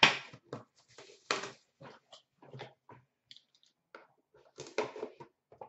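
A metal trading-card tin and its packaging being handled: a string of short clacks, scrapes and rustles, the loudest right at the start and about a second and a half in, with another cluster near the end.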